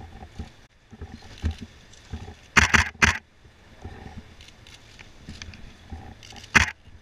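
Press photographers' camera shutters firing in short rapid bursts over a low background rumble. The loudest run of clicks comes a little after two and a half seconds in, another follows about half a second later, and a last burst comes near the end.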